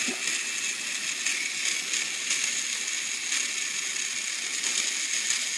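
Battery-powered Trackmaster Peter Sam toy engine's flat drive unit running on a single AA battery: a steady, even gear whir with a high tone. It is a smooth, quiet drive unit.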